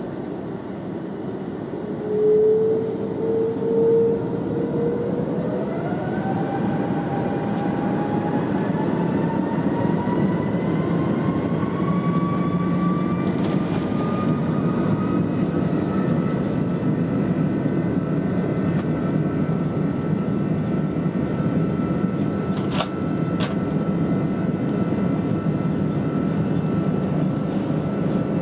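Cabin noise of an Airbus A330-300 on the ground, with a steady rush from the jet engines and airframe. About two seconds in, an engine whine begins to rise steadily in pitch over some twelve seconds and then holds level: a jet engine spooling up. Two faint clicks are heard in the cabin.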